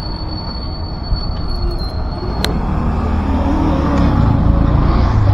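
Urban street noise: a steady high-pitched squeal, a sharp click about two and a half seconds in, then a low rumble that swells and grows louder near the end, as a heavy vehicle or train passes close by.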